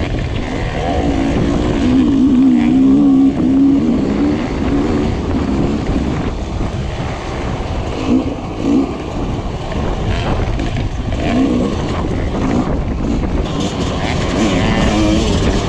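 Dirt bike engine running and revving up and down with the throttle while riding a rough trail, heard up close from the rider's helmet camera.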